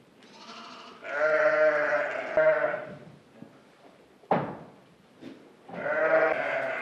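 A barn flock of sheep and goats bleating: a long, loud bleat about a second in and another near the end, with a brief sharp sound in between.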